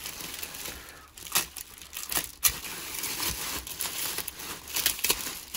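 Packaging being unwrapped by hand: irregular crinkling and rustling of wrapping material, with a few sharper rips or cracks.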